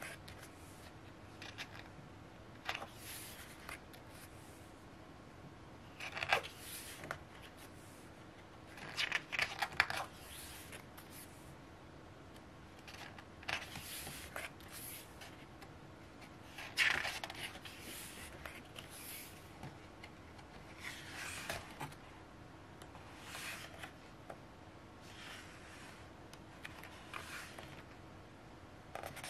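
Pages of a glossy photo book being turned by hand, a brief papery swish every two seconds or so.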